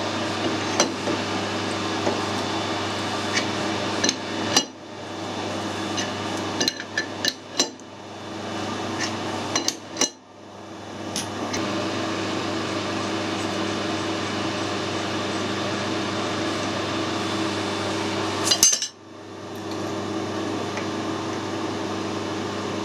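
Steady machine-shop hum with scattered sharp metal clinks and knocks as steel tools and a threaded fitting are handled at a lathe, with a short cluster of clinks near the end. The hum cuts out briefly three times.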